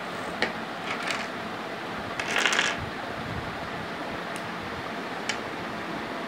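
Small plastic flower blocks clicking as they are snapped together by hand. About two and a half seconds in there is a louder rattling clatter of the pieces, heard over a steady background hiss.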